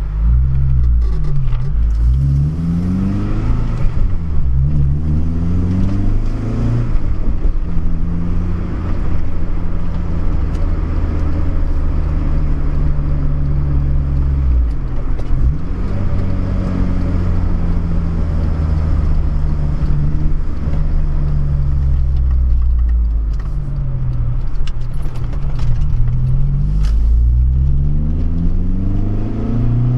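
Honda Civic Si (EP3) with a K24 engine, driving through the gears on a test drive of a new short shifter. The engine pitch rises as it accelerates and drops at each shift, with steadier cruising in between.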